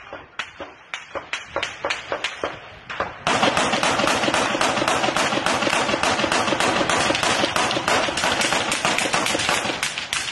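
Small-arms gunfire: a few seconds of separate shots, then about three seconds in, much louder sustained rapid automatic fire that keeps going. It is covering fire answering the shout to cover and shoot.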